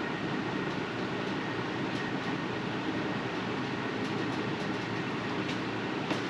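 Steady running hum and whoosh of a workshop machine, with a few faint light ticks over it.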